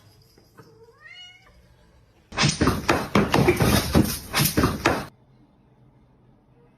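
A cat meowing: a short call rising in pitch about a second in, followed by about three seconds of loud, harsh noise.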